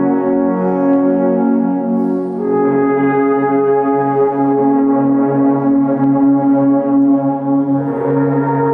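An ensemble of a dozen or so alphorns in F-sharp playing long held chords together, the harmony moving to a new chord about two and a half seconds in and again near the end.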